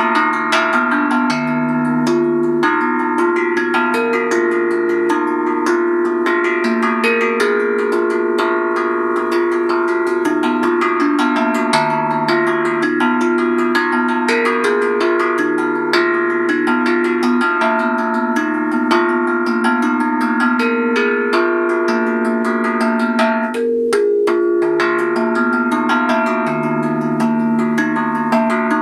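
Steel handpan (hang drum) played with the fingers in a quick run of strikes, its ringing bell-like notes overlapping into held chords that change every couple of seconds.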